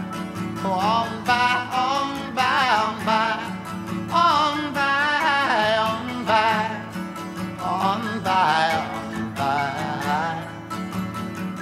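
Country-style song: plucked acoustic guitar under a melody line that wavers with vibrato.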